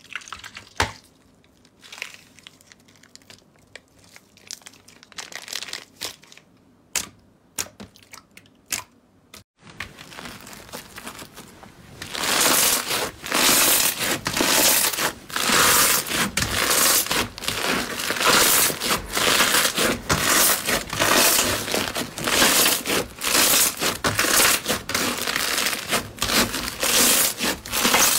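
A slime-filled plastic bag squeezed in the hands, giving sparse crinkles and small clicks. After a short break, foam-bead slime (floam) is kneaded and pulled, a loud, dense crackling crunch that runs on without letup.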